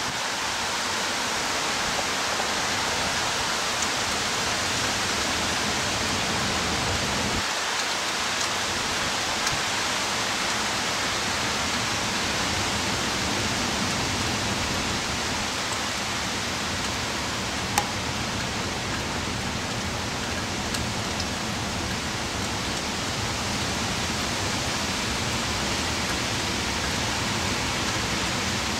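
Heavy hurricane rain falling in a steady, even rush, with one small sharp tick about 18 seconds in.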